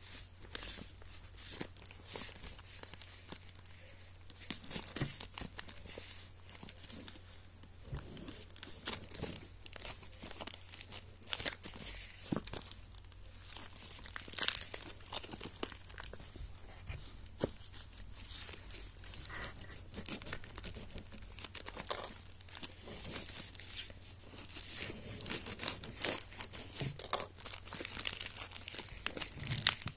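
Plastic parcel packaging being torn open and crinkled by hand: irregular ripping and crackling, with one sharp, loud tear about halfway through.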